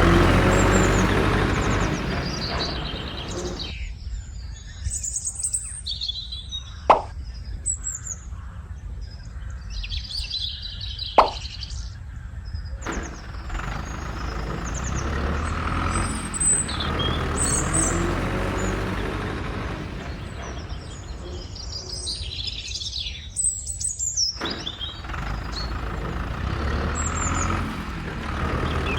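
Small birds chirping repeatedly over a low engine-like rumble that swells near the start and again near the end, with two sharp clicks about seven and eleven seconds in.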